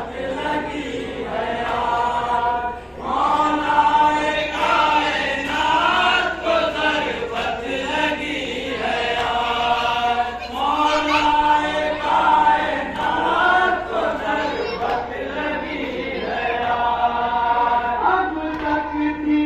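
Group of men chanting a noha, a Shia lament for Imam Ali, in unison through a microphone, with repeated rising and falling phrases.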